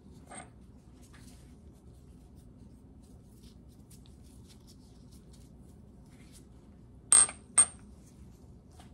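Two sharp clinks about half a second apart, with a brief high ring, as a ceramic pestle is set down on a stone countertop; a softer clink comes near the start.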